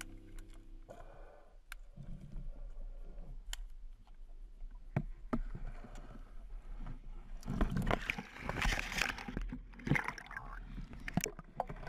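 Water sloshing and gurgling around a spearfisher's camera at or under the water, with scattered sharp clicks and knocks. A louder stretch of splashing comes about eight seconds in.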